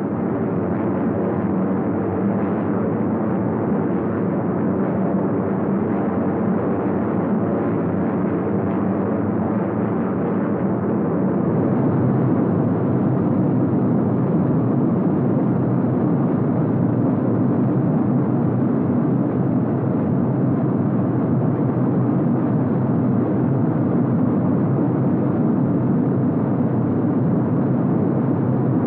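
Steady drone of a four-engined heavy bomber's piston engines in flight, heard from inside the aircraft. The drone thickens slightly about eleven seconds in.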